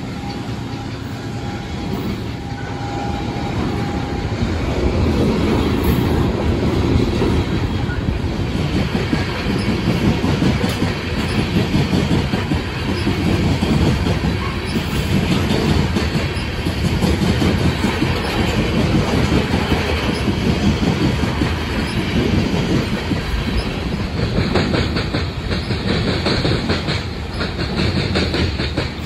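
Covered hopper cars of a freight grain train rolling past at speed, their steel wheels clacking over the rail joints in a fast, steady rhythm over a constant rumble. The sound grows louder a few seconds in, and a harsher, higher rail noise joins near the end.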